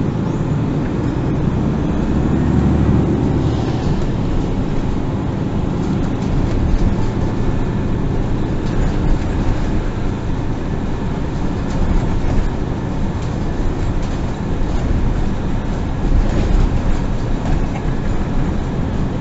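MAN NG 363 Lion's City GL articulated bus heard from inside the passenger cabin during a ride: steady engine and running noise, with a heavier low rumble a couple of seconds in.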